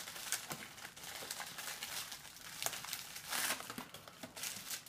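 Crinkling of shiny plastic snack wrappers as packets are handled and rummaged through in a cardboard box, in irregular rustles with a couple of louder crinkles past the halfway point.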